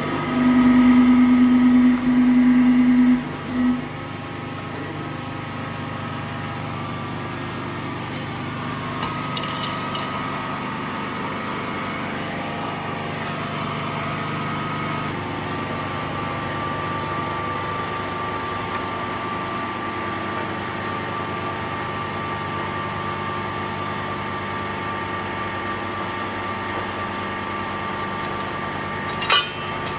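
Press brake running with a steady motor hum. For about the first three seconds a louder droning tone rises over it as the machine presses the steel plate, then it drops back to the hum. There is a brief metallic clatter around nine seconds in and a sharp knock near the end.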